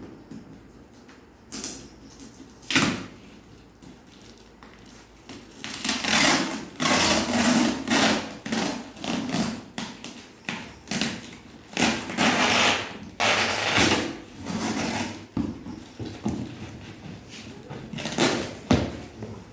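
Cardboard shipping box being cut and opened by hand. A couple of sharp knocks come first, then several seconds of scraping, tearing and rustling of cardboard and tape, then scattered knocks and rustles near the end.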